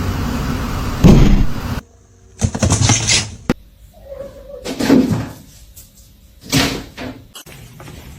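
Loud bangs and clatter in four separate bursts, the loudest about a second in.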